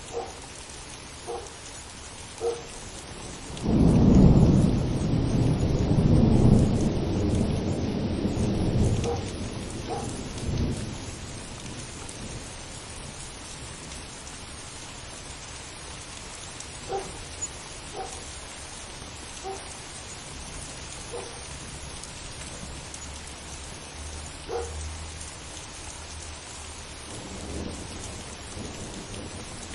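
Thunderstorm: steady rain falling, with a long, loud roll of thunder starting about four seconds in and dying away over some seven seconds. Scattered light ticks of drops sound over the rain.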